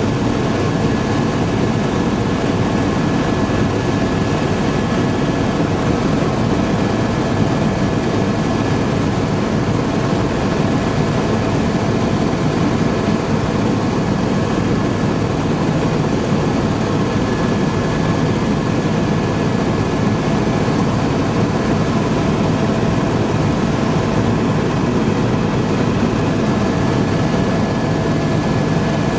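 Tour helicopter's engine and rotor drone heard from inside the cabin, a steady loud noise with a constant high whine over it.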